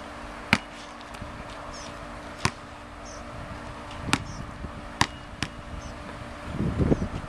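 Basketball bouncing on a concrete court: five sharp bounces, irregularly spaced, three of them closer together between about four and five and a half seconds in. A low rumbling noise comes in near the end.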